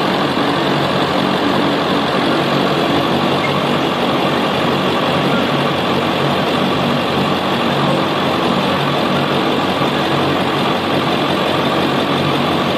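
Ford F-350 pickup's engine idling steadily.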